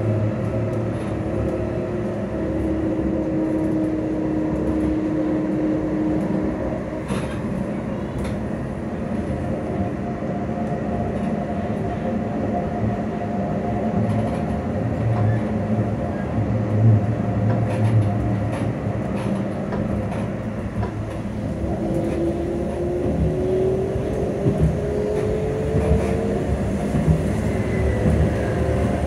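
Edinburgh tram running, heard from inside the passenger saloon: a steady rumble of wheels on rail with a few light knocks. A motor whine holds steady and fades out in the first quarter. Later, from about two-thirds of the way in, another whine climbs steadily in pitch.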